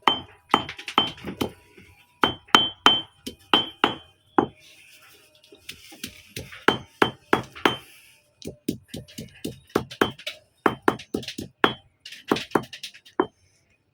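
A tool striking something hard, again and again, about three times a second, with a slight metallic ring on many strikes. The strikes come in several runs separated by short pauses, and some strikes in the later runs sound duller.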